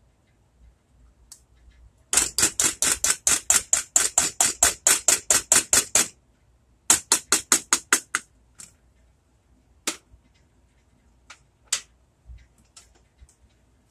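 Rapid scraping strokes, about six a second, of a spoon working inside a small metal can to dig out tomato paste, then a shorter run a second later and a few single clicks.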